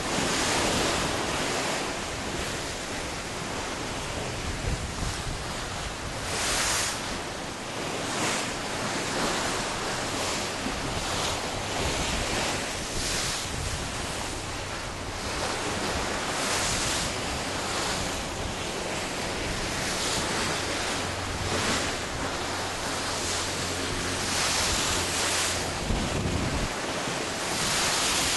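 Seawater churned up by a cruise ship under way, rushing and splashing steadily, with louder surges every few seconds. Wind buffets the microphone.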